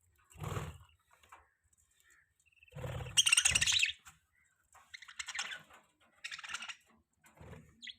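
Budgerigars chirping and chattering in short bursts separated by brief pauses, with the longest and loudest burst about three seconds in.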